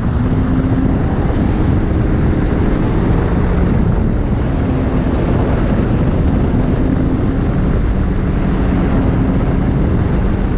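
Jet ski engine running steadily under way, its pitch shifting slightly with the throttle, with wind noise on the microphone and the rush of the hull over water.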